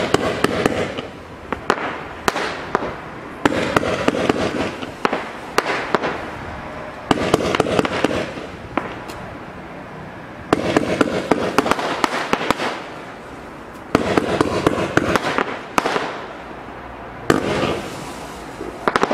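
A 30-shot, 20 mm firework cake (NICO Paris) firing in volleys: about every three and a half seconds a cluster of sharp cracks and bangs goes off, then fades away before the next salvo.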